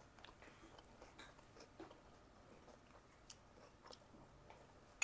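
Near silence, with faint scattered small clicks and soft chewing from people eating ice cream with spoons from mugs.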